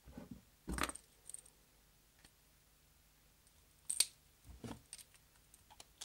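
Swiss army pocket knives being handled and set down on a wooden tabletop: a knock about a second in, then a sharp metallic click and a few softer knocks around four seconds in.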